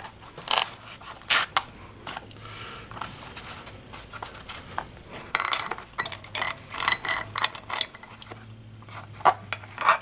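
Small metal hand tools, hex drivers among them, clicking and knocking as they are handled and pushed back into the slots of a tool kit case. There are scattered clicks throughout, and a busier run of them about halfway through.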